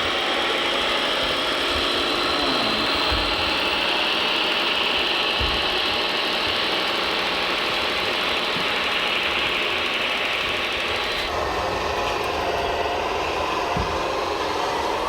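Radio-controlled model trucks and construction machines running, a steady whir of small motors and gearing with occasional knocks. The sound changes abruptly about eleven seconds in.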